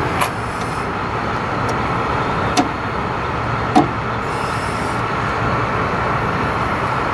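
Steady vehicle rumble, with three short sharp metallic clicks in the first four seconds as the stop arm is worked onto its mounting frame.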